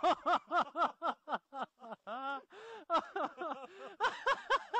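A person laughing in quick, rhythmic ha-ha bursts, about four a second. A couple of breathy gasps come a little after two seconds in.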